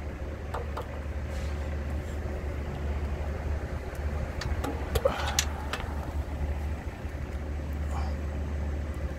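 Engine idling with a steady low hum, with a few light clicks and knocks from handling about half a second in and again around the middle.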